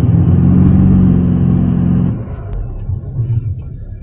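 Toyota Land Cruiser GXR's remapped V8 twin-turbo diesel engine heard from inside the cabin, held at steady revs with a deep rumble, then easing off sharply about two seconds in.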